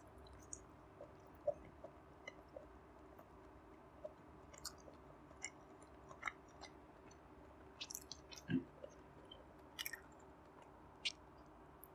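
Close-miked chewing of barbecued pork belly: soft, irregular wet mouth clicks and smacks. One low knock comes about two-thirds of the way through.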